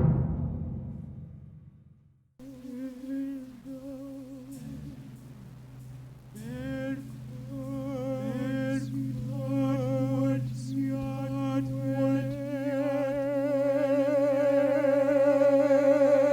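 A deep drum stroke rings out and fades over the first two seconds. Then a low steady drone begins and a voice hums a long wavering tone over it, growing louder toward the end.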